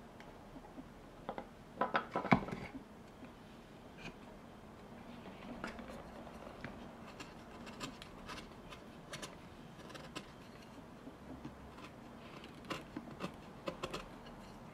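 A hand carving tool cutting and scraping wood: scattered small clicks and scrapes, with a louder cluster of cuts about two seconds in and another near the end.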